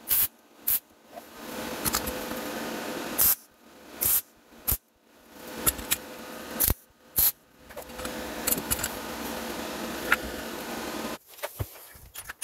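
Electric arc welder crackling in stop-start bursts, some lasting a second or more and some only short zaps, as a fresh bolt is welded onto the head of a rusted, seized EGR cooler bolt.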